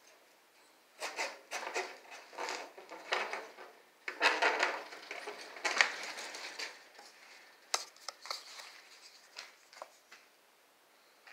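Chicken-wire mesh on a wooden frame being handled: a run of short scrapes and light metallic rattles, loudest about four to six seconds in.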